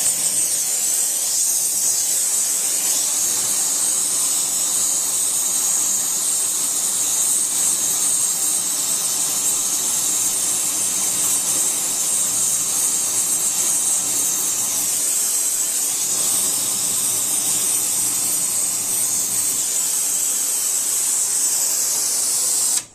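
Steady, loud hissing of a flame lighting diesel fuel poured into the cylinders of a seized tractor engine. It cuts off suddenly near the end.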